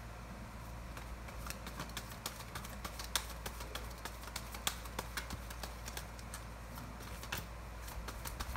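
Tarot deck being shuffled and handled, a quick, irregular run of light card clicks starting about a second in, over a low steady hum.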